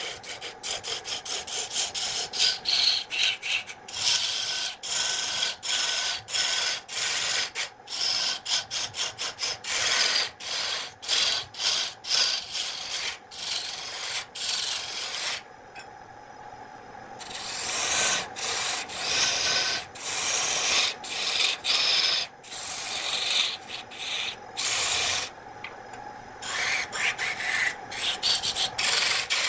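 Turning gouge cutting a large wood blank spinning on a belt-driven wood lathe: scraping, rasping cuts in quick repeated strokes over the steady running of the lathe's electric motor. The cutting pauses twice, leaving only the motor's hum, then resumes.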